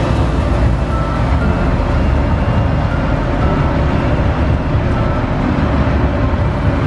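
Grain bin drying fans running with a loud, steady noise, blowing air through soybeans being dried in the bins.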